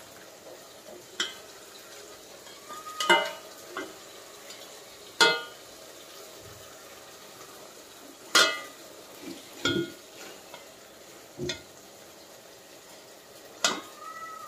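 Metal spoon knocking and scraping against a stainless steel pot while mutton and onions fry in oil: a steady low sizzle under about eight sharp, ringing clinks.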